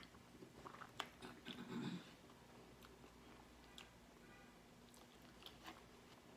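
A person quietly chewing a mouthful of burger with grilled onion, heard close up as soft wet mouth clicks and smacks. The loudest part is a short smack about one and a half seconds in, and after it there are only a few faint clicks.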